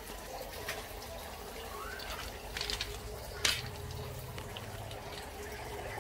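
Water from a garden wall fountain splashing and trickling steadily into its basin. A few knocks from the camera being handled come around the middle, the loudest about three and a half seconds in, as a hand grabs the phone.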